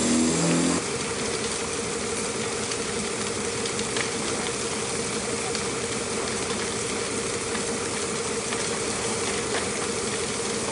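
A large building fire burning: a steady rushing hiss with scattered faint crackles over a steady hum. A pitched drone stops about a second in.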